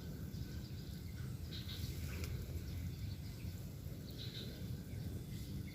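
Quiet outdoor background: a steady low rumble with a few faint, brief high-pitched calls.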